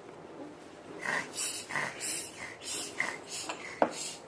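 Slime being stirred in a bowl: a quick run of wet, squelching strokes, with a sharp click near the end.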